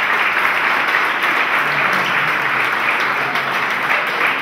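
An audience of seated people applauding steadily, a round of clapping for a newly introduced candidate.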